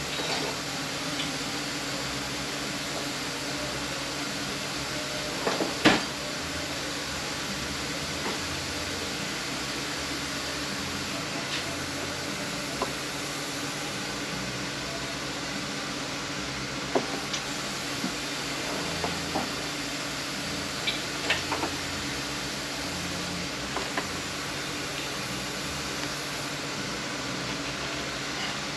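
Steady hiss with scattered light metal-on-metal clicks and one sharper knock about six seconds in, as hand tools work a thread-locked part loose from a transmission case.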